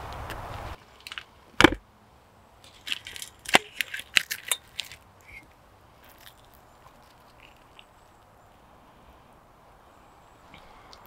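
Crispy fried chicken crust crackling and crunching as the piece is squeezed and torn apart by hand, a string of sharp crackles over the first few seconds.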